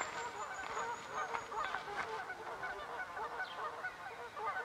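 A flock of waterfowl calling on a lake: many short, overlapping honking calls, one after another, with a thin high whistle during the first second and a half.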